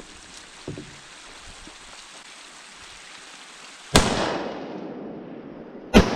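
Two gunshots about two seconds apart, each sharp crack followed by a long fading echo.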